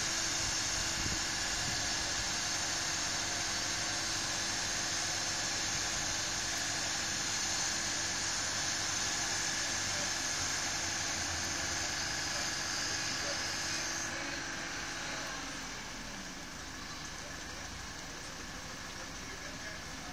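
A heavy vehicle's engine runs steadily with a high hiss over it. About fifteen seconds in it eases off and the sound drops quieter.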